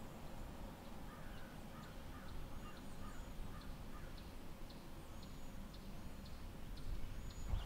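Crows cawing faintly in a quick run of about eight harsh calls between one and four seconds in, with faint high chirps from smaller birds over a low outdoor background.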